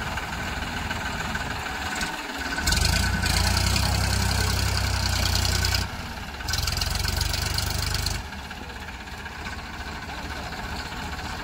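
Diesel tractor engines running, rising twice to a loud full-throttle strain, about three seconds in for around three seconds and again about six and a half seconds in for under two seconds, then dropping back to a steady run. The lead Farmtrac 45 is straining under load to tow a tractor and loaded trolley stuck in mud.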